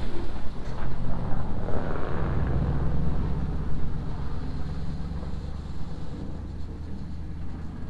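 Skid-steer loader's diesel engine running steadily under load, heard from on the machine, getting quieter over the last few seconds.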